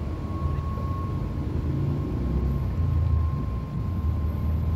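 A machine running with a steady low rumble and a thin, steady high whine over it.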